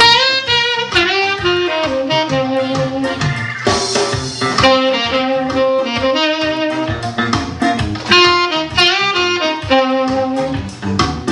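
Saxophone playing a jazz melody over a backing track with a steady beat, its notes often sliding up into pitch.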